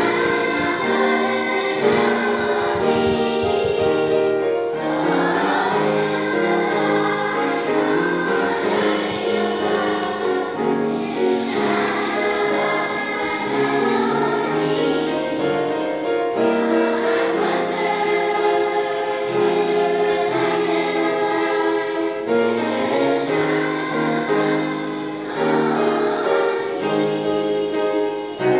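Children's choir singing a song together in parts, with held notes.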